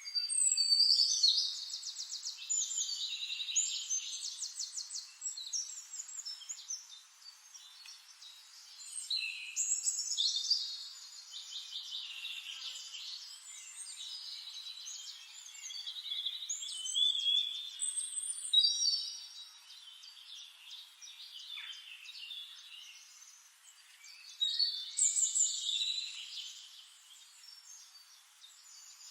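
Songbirds singing: rapid trilled and warbling phrases, loudest at the start and returning in bouts every several seconds, with softer calling in between.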